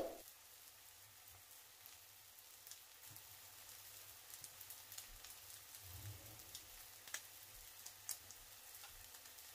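Near silence: faint hiss with scattered soft ticks, after a bell-like ding fades out at the very start.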